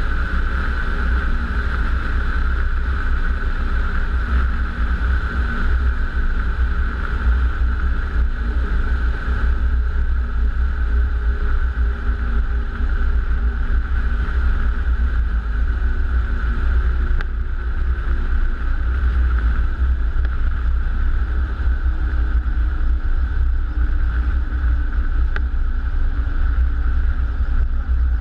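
Distant piston engine of a WWII fighter droning, its pitch slowly falling in the second half as the aircraft draws away, under heavy wind rumble on the microphone.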